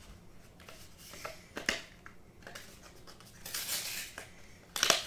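Trading-card packaging being handled by hand: a few short clicks, a rustling scrape about three and a half seconds in, and a sharp snap near the end.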